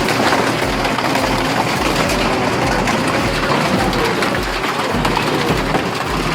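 A heavy industrial shredder running, with a low thump repeating about twice a second.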